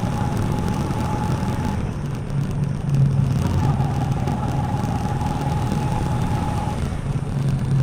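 TVS Apache RTR 4V motorcycle's single-cylinder engine running steadily under way, with a thin high whine that drops out about two seconds in and comes back for a few seconds.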